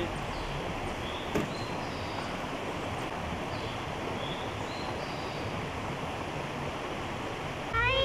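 Creek water rushing steadily over rocks. There is a single sharp click about a second and a half in, and a few faint short high chirps.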